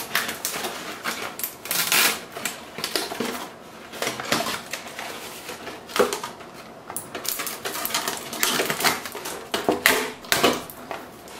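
A stiff moulded packaging tray crackling and clicking as it is flexed and pried to work a computer mouse free: irregular sharp clicks and rustles.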